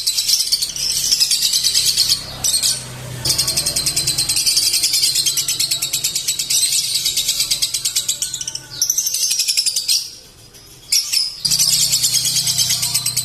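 Lovebird singing in long, rapid, high-pitched chattering trills, broken twice by short pauses about two and ten seconds in.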